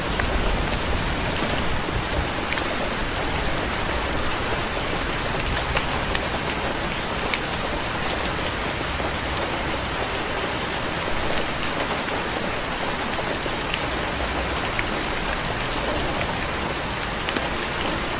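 Steady rain falling on a porch, a dense even patter with sharp ticks of single drops scattered through it.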